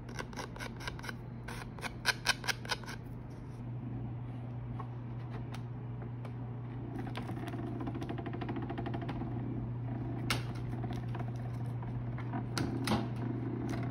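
Card corner-rounding punch snipping card corners, several sharp clicks in the first three seconds. After that, a steady hum from the heated machine the tarot cards are fed through, with a few faint clicks.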